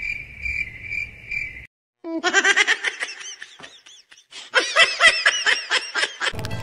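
A high-pitched chirping, pulsing about twice a second, cuts off about two seconds in. After a brief gap come two bouts of rapid, high-pitched laughter.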